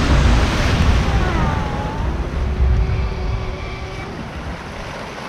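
Water coaster boat splashing down into the flume and surging through the water channel: a loud rush of churning water that fades gradually as the boat slows.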